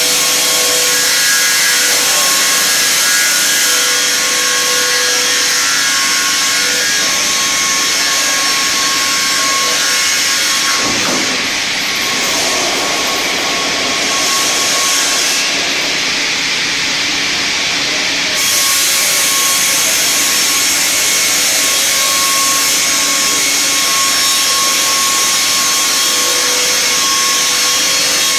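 StrojCAD D9 double-bladed circular sawmill cutting spruce: its two saw blades run through the log as the carriage carries it past, giving a loud, steady hiss of sawing with faint steady tones. The sound dips briefly about eleven seconds in.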